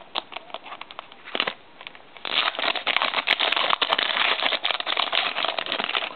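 Plastic trading-card pack wrapper crinkling as it is handled and opened. There are a few light rustles and clicks at first, then dense, steady crinkling from about two seconds in.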